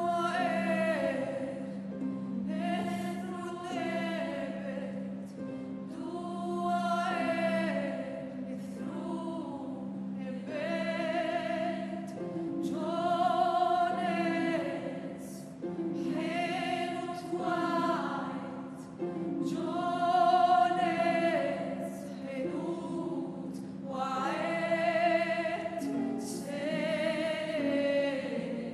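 A solo female voice singing slow, sustained phrases with wide vibrato into a microphone, over a steady low note held by a symphony orchestra.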